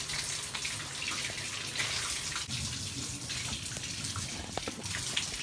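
Water running steadily from a bathtub tap into the tub, with a few faint knocks.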